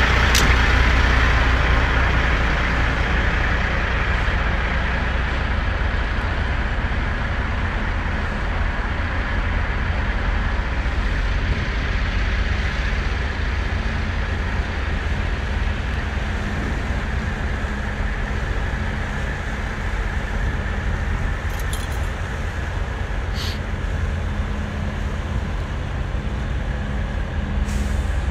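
Steady low rumble and hiss of a running motor vehicle, with a few brief clicks.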